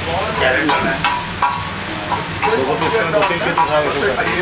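Metal spatula clanking and scraping on a hot flat griddle, striking about twice a second, as a mushroom and vegetable filling is stir-fried over a steady sizzle.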